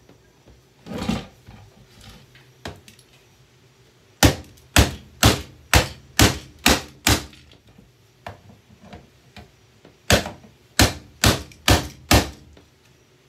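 Hammer blows on a Bissell handheld vacuum cleaner as it is smashed apart. A dull thump comes about a second in, then a run of eight sharp strikes at about two a second, a pause, and five more near the end.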